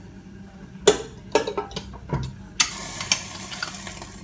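Metal knocks and clinks as a spätzle press is handled and set on a cooking pot. About two and a half seconds in, a sudden hissing, rasping noise starts as the press is squeezed and dough begins to come through its holes.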